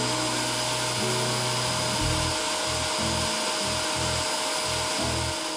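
Portable carpet cleaner running, its motor giving a steady whine and a loud suction hiss as the pet stain tool nozzle is worked over carpet. Background music with a steady low beat plays under it.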